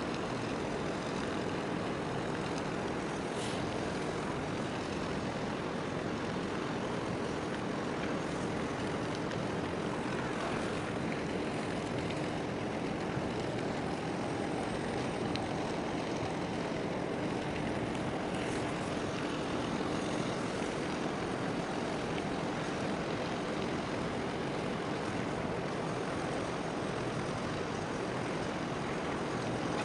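Steady distant engine drone of a large container ship moving slowly out of harbour, under an even background noise, with a faint steady hum that fades out about two-thirds of the way through.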